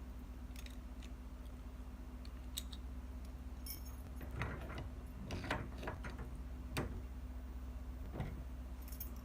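Scattered light metallic clicks and taps, spread irregularly a second or so apart, from a lever safe lock and its double-bit key being handled, over a steady low hum.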